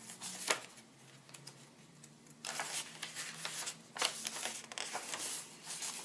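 Paper pages and cards of a handmade journal being turned and handled: soft, irregular rustling and flapping of paper, with a quieter lull about a second in.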